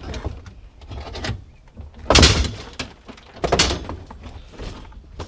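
Scrap items being shifted and set down by hand, with knocks and scraping; the loudest clatter comes about two seconds in and another knock about a second and a half later.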